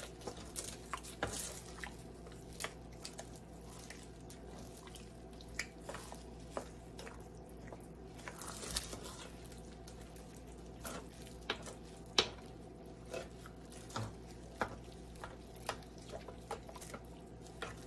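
Thick, wet chili mixture being stirred in a plastic-lined slow cooker: irregular soft wet squelches and small clicks.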